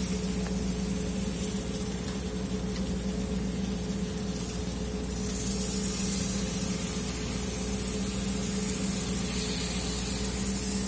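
Beef cubes in tomato paste sizzling in a large aluminium pan as hot beef stock is ladled in, a steady hiss, over a constant low machinery hum.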